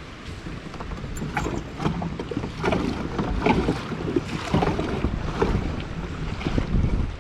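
Wind buffeting the microphone and choppy waves slapping against a kayak's hull, growing louder after about a second in irregular splashes.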